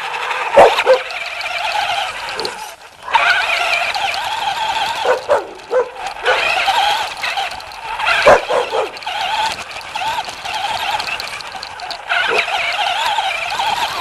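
A puppy barking and yipping, with a few louder barks and wavering high whining between them.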